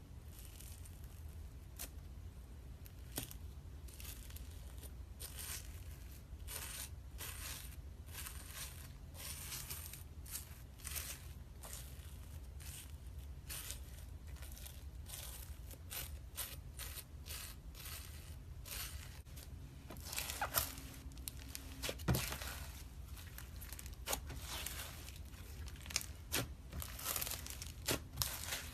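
Slime being squeezed and stretched by hand, giving irregular crackling and popping clicks that grow denser and louder in the last third.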